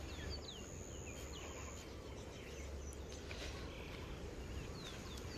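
Outdoor ambience of birds giving short, quick downward chirps. Under them a steady high insect buzz stops about two seconds in and starts again about four seconds in, over a low rumble.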